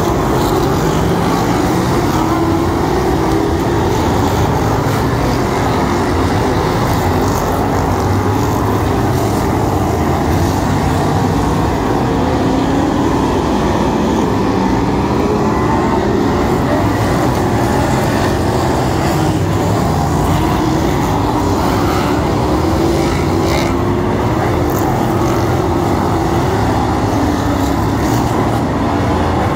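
A pack of dirt-track speedway cars racing, their engines running together in a loud, continuous drone. The pitch rises and falls as the cars accelerate out of the bends.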